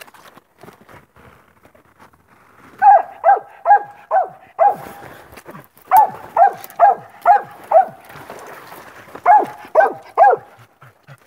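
Coon-hunting dog barking treed: three quick runs of short, sharp chop barks, about two or three a second, the sign it has game up a tree.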